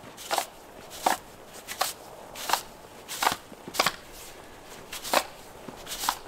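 Footsteps crunching in snow at a steady walking pace, about eight steps.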